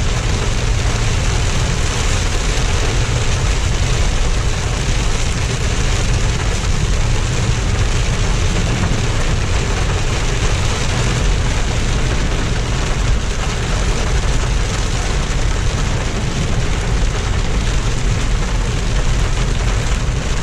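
Heavy rain hitting the roof of a moving car, heard from inside the cabin, over a steady low rumble of road and engine noise.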